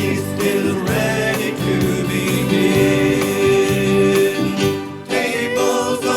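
Church choir singing with instrumental accompaniment, with a brief drop in level about five seconds in.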